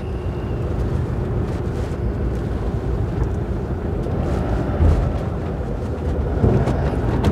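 Motorhome engine running as the vehicle pulls slowly up a steel ferry loading ramp, tyres rolling over the ribbed plates, heard from inside the cab, with one thump about five seconds in.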